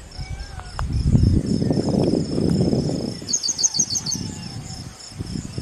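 Insects chirping in a steady, evenly pulsing high trill, with a quicker burst of higher chirps a little past the middle. A louder low rumbling noise covers the first half.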